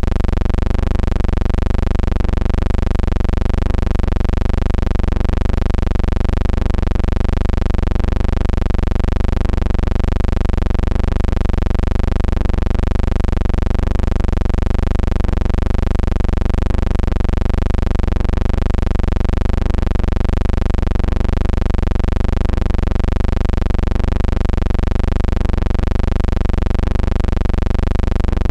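Steady low hum with hiss, swelling slightly about once a second.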